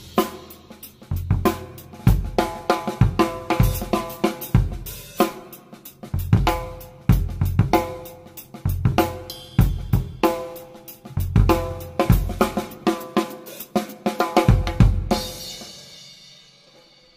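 Background music: a drum-kit track with bass drum, snare and cymbals over pitched chords, fading out near the end.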